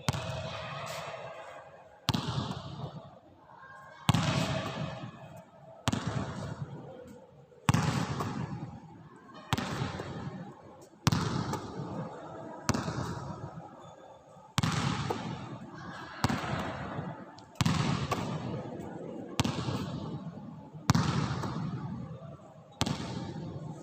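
A basketball bounce-passed over and over, one bounce about every two seconds, each hard slap followed by a long echoing tail.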